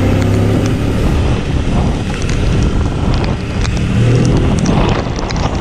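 Motorcycle engine running while riding on a wet road, with tyre hiss off the rain-soaked surface and wind buffeting the microphone. The engine note swells briefly near the start and again about four seconds in.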